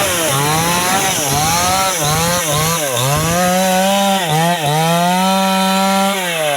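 New West 588 two-stroke chainsaw running at high revs while cutting wood, its pitch dipping and recovering again and again as the chain bites. Near the end the throttle is released and the engine winds down.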